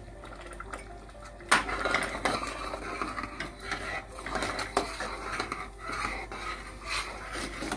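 A ladle stirring thick dal in a metal cooking pot, scraping and clicking against the pot in an irregular run that starts about a second and a half in with a sharp knock.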